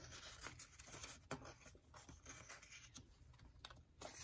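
Faint rustling and light ticks of ring-bound paper flash cards being turned and handled, with a few sharper ticks near the end.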